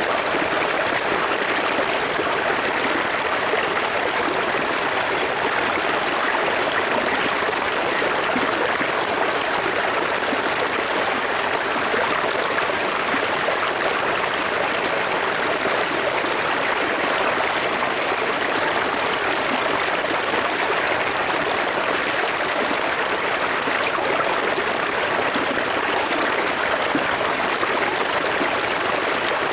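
Forest river flowing: a steady, even rush of water.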